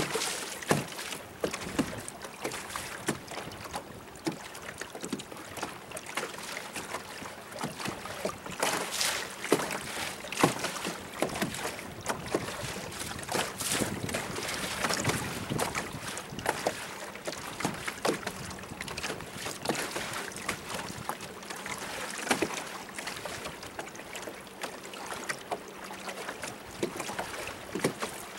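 Choppy lake water slapping and splashing irregularly against the hull of a small boat.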